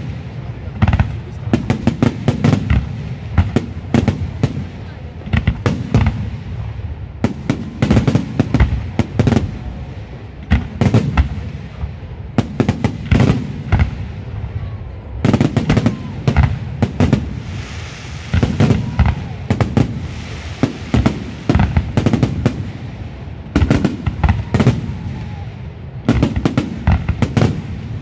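Fireworks display: aerial shells bursting in rapid clusters of sharp bangs over a low rumble, with a stretch of fizzing crackle about two-thirds of the way through.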